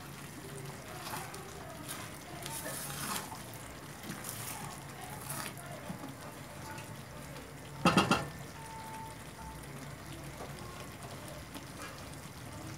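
A spoon and a wooden spatula stirring thick curry in a stainless steel pan, with faint scrapes and clicks. About eight seconds in comes a short run of loud, sharp knocks, utensil against pan or lid.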